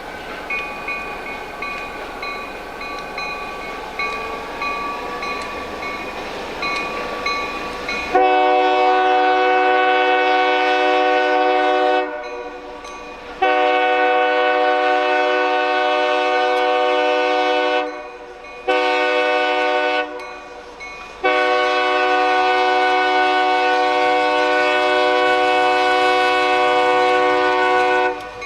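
Locomotive air horn on an EMD SD40 sounding the grade-crossing signal: two long blasts, a short one, then a final long one. During the first eight seconds, before the horn starts, a bell dings steadily over the sound of the approaching train.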